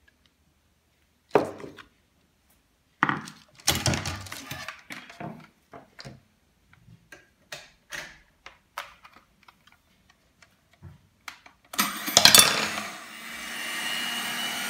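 Clicks and knocks of handling, then an electric hand mixer switched on about twelve seconds in, its motor running with a steady whine.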